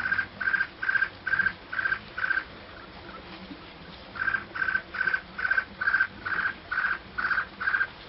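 An animal calling in an even run of short calls at one pitch, about two and a half a second. The calls break off for a second and a half a few seconds in, then go on.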